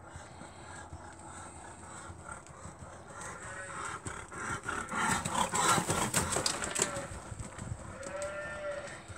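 Hoofbeats of a ridden horse going past close by on a rubber-chip arena surface, loudest about halfway through. Cattle moo several times in short calls in the background.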